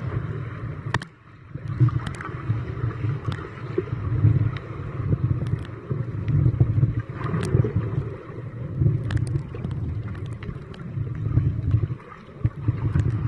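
Muffled underwater water noise heard through a submerged camera: a low rumble that swells and fades about once a second as the swimmer moves, with scattered sharp clicks. It drops away briefly about a second in and again near the end.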